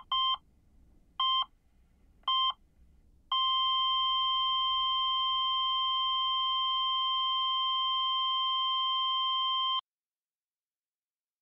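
Answering machine beeping after its greeting: one beep ends, two short beeps follow about a second apart, then one long steady beep of about six seconds, the signal to start leaving a message, which cuts off suddenly.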